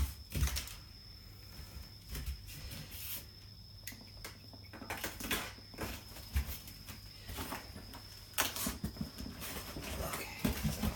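Cardboard box and packing being handled and slid apart: scattered scraping and rustling with a few sharper knocks, about half a second in, near the middle and about eight and a half seconds in.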